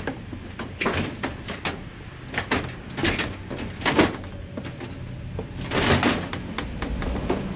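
Sheet-metal appliances being shoved and shifted in a truck's cargo area: a string of metal knocks and clanks, the loudest about four seconds in, then a short scrape of metal sliding about six seconds in.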